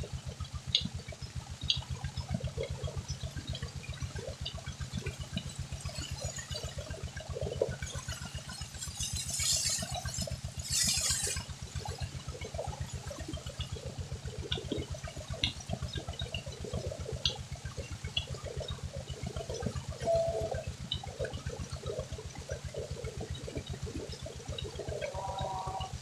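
Tubewell water gushing from the outlet pipe and splashing onto a woven charpai and the ground below, with the pump's engine thudding rapidly and steadily underneath. The splashing briefly gets louder and hissier about ten seconds in.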